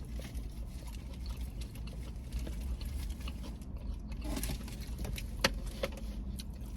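Quiet eating sounds: scattered small clicks and taps of utensils and food, with one sharper click about five and a half seconds in, over a steady low hum.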